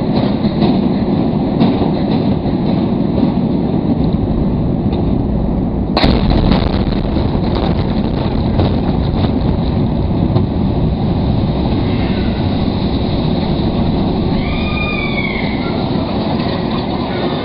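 Explosive demolition of an old office building: the long, heavy rumble of the structure collapsing and debris coming down, with a second sharp bang about six seconds in.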